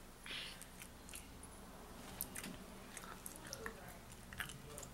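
A person chewing with the mouth open, close to the microphone: soft, irregular wet smacks and clicks.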